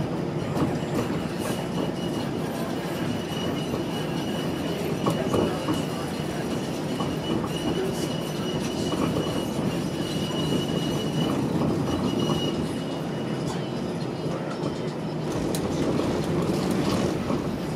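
Inside a moving TTC Flexity Outlook streetcar: the steady rumble of the car running on its rails, with a thin, high wheel squeal from about three seconds in until about twelve seconds in.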